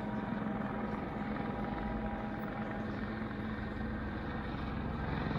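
Police helicopter circling overhead: a steady drone of its rotor and engine.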